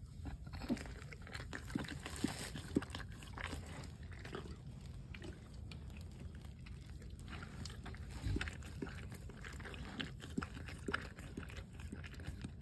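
Faint, irregular small clicks and animal sounds from a Great Dane in labor while a puppy in its sac is being delivered.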